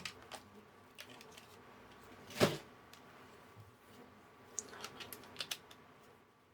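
Small clicks and knocks of handling hardware on a workbench, with one louder knock about two and a half seconds in and a quick run of light clicks around five seconds in.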